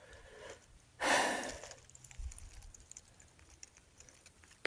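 A person's breath: one short, noisy exhale close to the microphone about a second in, with low rustling before and after.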